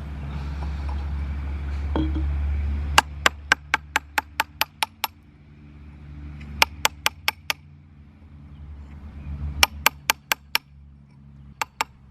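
Hammer striking a steel chisel on limestone in quick runs of sharp clinking taps, about five a second, with short pauses between runs. A low rumble runs under the first few seconds and fades as the tapping begins.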